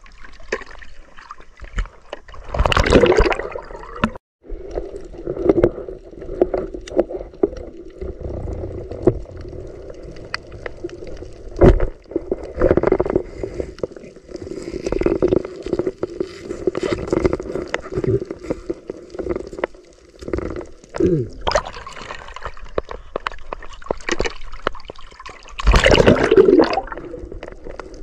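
Water gurgling and sloshing around a camera that is partly or fully underwater as a snorkeler swims, with louder surges of splashing about 3 s in and again near the end.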